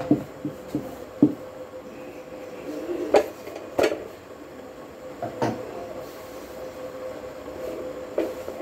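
Scattered knocks and taps of utensils on the pan and counter while chapatis are rolled and cooked on a gas stove, over a steady hum.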